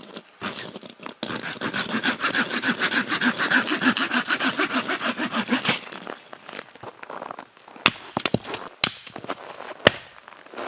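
Hand saw cutting wood with a fast run of even rasping strokes for about four and a half seconds, followed by three sharp cracks or knocks.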